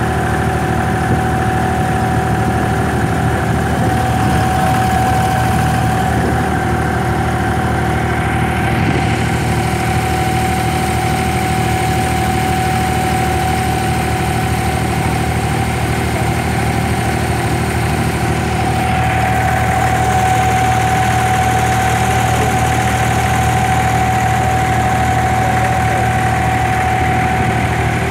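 Inboard engine of an abra, a small wooden creek ferry, running steadily under way, with a steady high whine over the low engine note.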